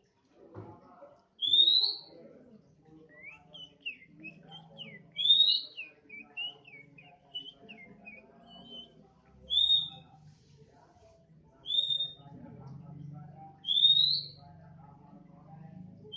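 Oriental magpie-robin singing: five loud, short, rising whistled notes two to four seconds apart, with quick, softer chirping notes between them in the first half.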